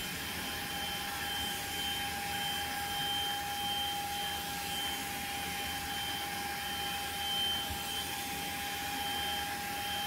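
Xiaomi portable handheld vacuum cleaner running steadily at its normal, lowest suction speed: an even rush of air with a steady high whine from the motor.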